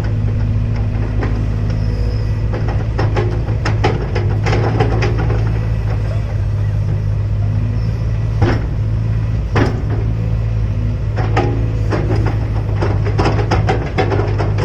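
Excavator engine running steadily under load, with frequent sharp knocks and clanks from the working machine.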